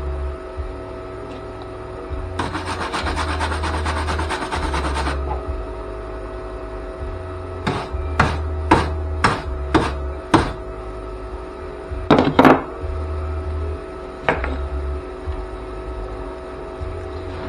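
Flux-core wire welder laying weld on thin car body sheet metal: about three seconds of continuous arc crackle, then a run of short sharp bursts about half a second apart, and a few more later, over a steady electrical hum.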